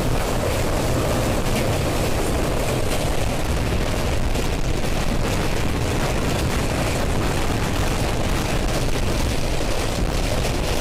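Express passenger train running at speed across a steel girder bridge over a river: a loud, steady rumble and clatter of wheels on the bridge.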